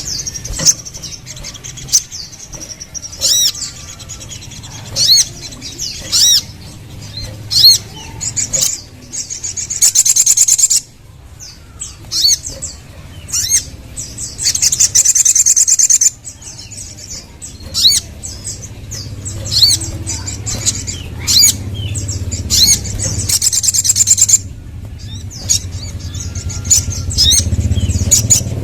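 Crimson sunbird (sogon) singing: sharp, high-pitched chirps scattered throughout, broken by several rapid trilling runs lasting a second or two each, played as a lure song to set off other sunbirds.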